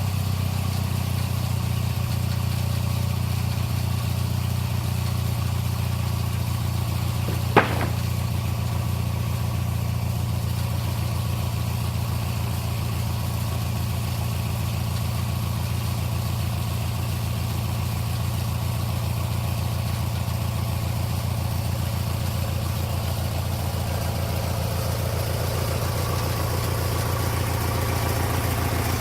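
Old Snapper lawn mower engine driving a homemade sawmill, running steadily at an even speed. One sharp knock about seven and a half seconds in.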